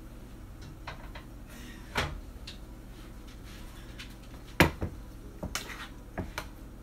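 A few kitchen knocks: one about two seconds in, then a frying pan set down on a wooden countertop, the loudest, followed by lighter clinks of a spoon in the pan.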